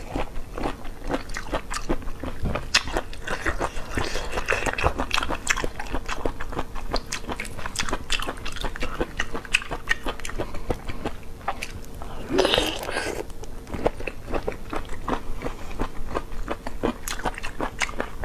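Close-miked mouth sounds of a person biting and chewing soaked sea cucumber: a steady run of sharp wet clicks and smacks, with a brief louder noise about twelve seconds in.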